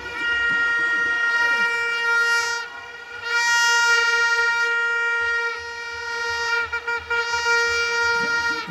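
A handheld horn blown in the stands in long, steady blasts on a single note, about three in a row with short breaks between, over the murmur of a crowd.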